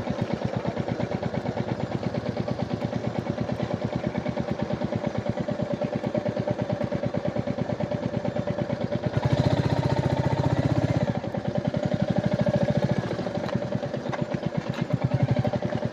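Royal Enfield Meteor 350's single-cylinder engine idling with an even thump, growing louder for about two seconds a little after nine seconds in.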